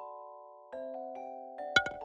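Background music of light, bell-like mallet notes, glockenspiel or xylophone style, held and ringing out, with a couple of sharp clicks near the end.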